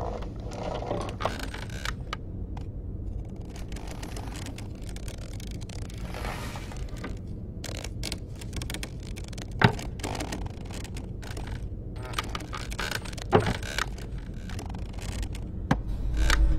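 A low steady hum with scattered small clicks and knocks, and sharper knocks about ten and thirteen seconds in.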